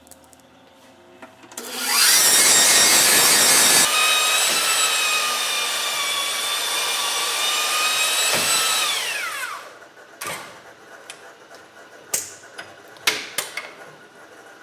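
Line honing machine running its honing mandrel through the main bearing housing bores of an LS V8 block, with a steady motor whine. The whine falls in pitch as the machine winds down near the end, followed by a few sharp clicks and knocks.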